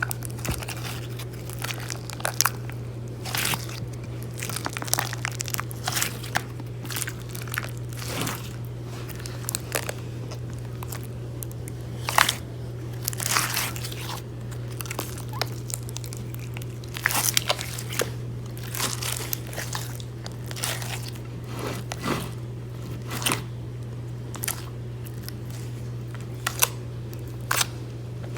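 Slime being squeezed and kneaded by hand: irregular squishing with sharp crackles and pops throughout, over a steady low hum.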